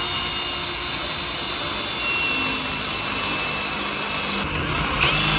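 Power drill running steadily, its bit boring an anchor hole into the floor; the noise starts abruptly.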